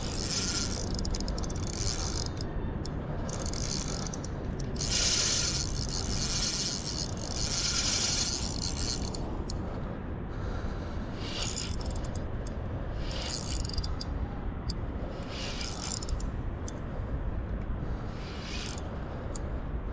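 Spinning fishing reel under load from a hooked fish: the handle is cranked while the drag ratchets off line in repeated bursts of about one to two seconds, the longest and loudest around five to nine seconds in, over a steady low rumble.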